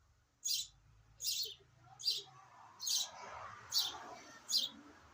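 Nestling birds in a birdhouse giving short, hissy begging calls, six in a row at an even pace of a little more than one a second.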